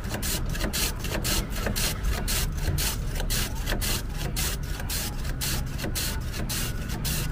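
Block of ice pushed back and forth by hand across the blade of a traditional wooden ice-shaving board, each stroke a rasping scrape, about four a second, as the ice is shaved.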